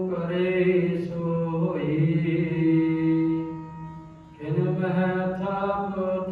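A man's voice chanting gurbani in a slow, drawn-out melodic recitation of the hukamnama. The chant breaks off briefly about four seconds in, then resumes.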